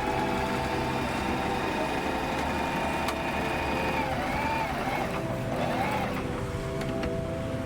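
Messina P5832 portable sewing machine running steadily, its motor whining while the needle stitches a buttonhole in zigzag, with brief changes in speed about halfway through.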